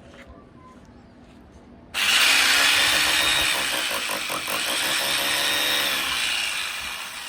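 Electric drill boring a hole into a wall, starting suddenly about two seconds in and tailing off near the end. The driller calls the wall poor, substandard material that the bit goes through with little effort.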